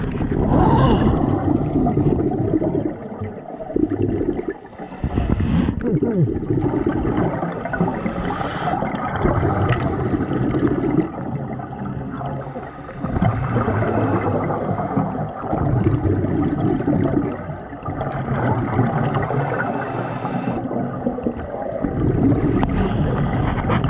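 Scuba diver breathing through a regulator underwater: a hiss at each inhale, then a gurgling rush of exhaled bubbles, repeating about every four to five seconds.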